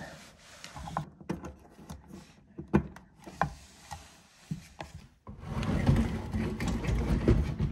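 A series of small clicks and knocks as wiring and hoses are handled beneath a Whirlpool dishwasher. About five seconds in comes a loud, steady scraping rumble as the dishwasher is slid back into its cabinet opening across a wood floor.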